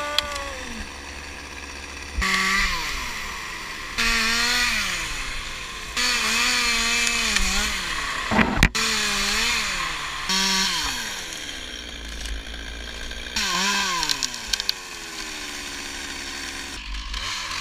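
Lightweight two-stroke chainsaw revving up and dropping back, its engine pitch rising and falling again and again. The sound changes abruptly every couple of seconds, with one sharp crack about halfway through.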